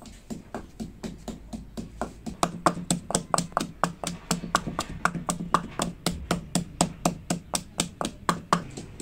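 Wooden pestle pounding fresh coriander and garlic in a stone mortar: steady knocks at about four a second, softer at first and harder from about two seconds in.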